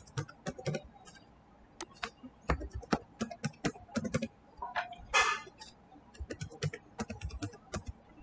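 Computer keyboard being typed on: irregular runs of short key clicks with brief pauses between them. A short breathy hiss about five seconds in.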